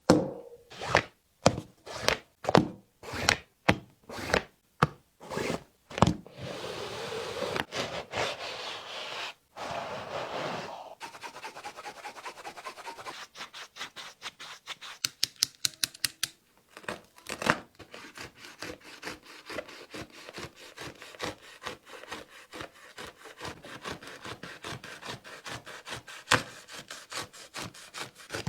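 A blade sawing and cutting through a Jordan Tatum 1 basketball shoe as it is taken apart: about a dozen separate strokes in the first six seconds, then a steady rasp for several seconds, then many fast short scraping strokes.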